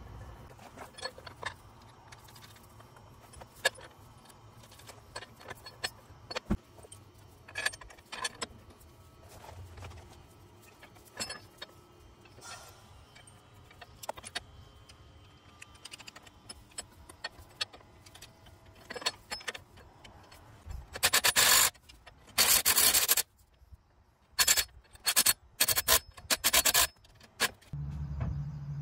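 Small metal clinks and scrapes as the steel air-spring bracket and U-bolts are fitted to the leaf spring. About two-thirds of the way in, a power tool runs in several short bursts, the loudest sound, as it tightens the nuts on the bracket's U-bolts.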